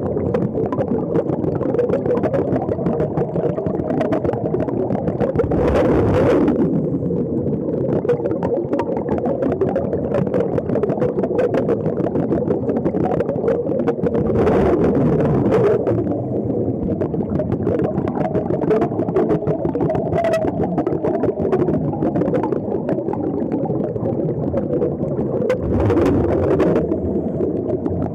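Underwater recording of a steady rumble of air bubbling out of sea-walker diving helmets fed by a surface air hose, with louder bubbling surges three times.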